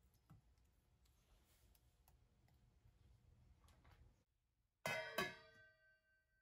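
Faint light ticks of a whisk stirring batter in a bowl. After a short dead gap come two sharp metallic strikes about a third of a second apart, which ring on with several clear tones and fade over about a second.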